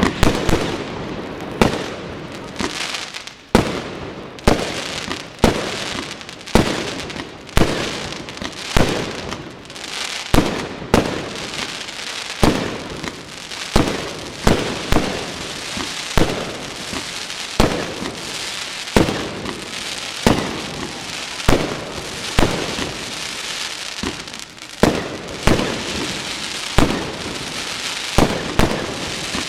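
Fireworks display: a steady run of sharp aerial shell bursts, about one bang a second and sometimes two in quick succession. Each bang trails off before the next.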